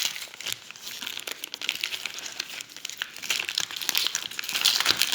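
Packaging crinkling and rustling as it is unwrapped by hand, in irregular bursts that are loudest at the start and again near the end.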